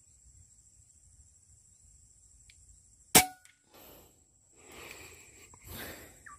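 A single shot from a PCP air rifle about three seconds in: one sharp crack with a brief ring, followed by a few softer noises.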